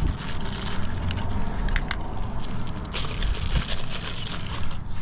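Hands rummaging through a plastic tool case and crinkling small plastic bags of crimp terminals and heat-shrink tubing, with a few sharp clicks of small parts about two and three seconds in.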